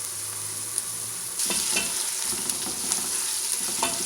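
Ginger-garlic paste sizzling in hot oil with fried onions in a pressure cooker, stirred with a spoon that scrapes and clicks against the pot. The sizzle grows louder about a second and a half in.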